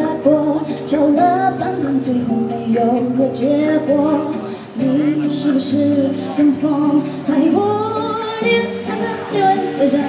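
A woman singing live into a handheld microphone over a backing track, her voice sliding between and holding sung notes above steady sustained chords.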